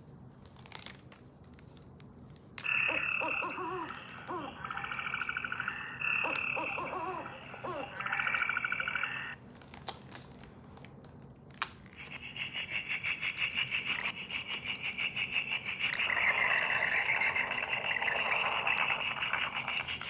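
Recorded frog calls played from a children's sound book's small speaker: rapid pulsing trills, in short stretches for several seconds, then a longer continuous chorus. A few sharp clicks come about a second in and again before the chorus.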